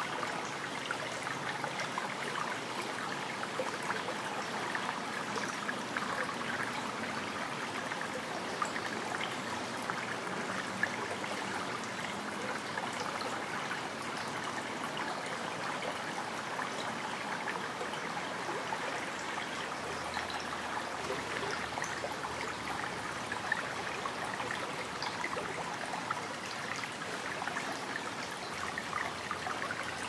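Shallow brook babbling steadily over stones: a continuous trickling rush dotted with many small plinks and splashes.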